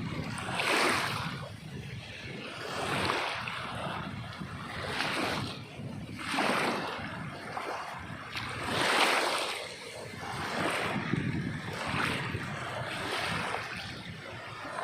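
Sea waves breaking and washing up the shore, surging and ebbing about every two seconds over a steady rush of surf.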